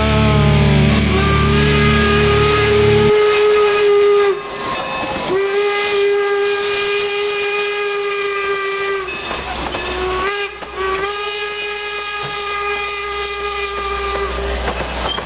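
Chime steam whistle of Norfolk & Western No. 475, a 4-8-0 steam locomotive, blown in three long blasts, each a steady multi-note chord, with short breaks between them. Rock music ends during the first blast.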